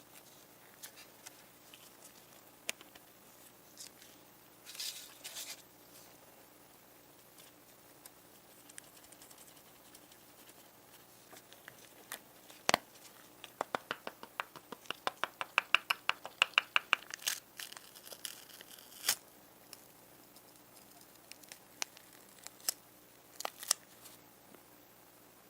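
Small hand-work sounds on a model car: scattered light clicks, a short scraping rustle about five seconds in, and a run of quick ticks, about five a second, lasting several seconds from about twelve seconds in.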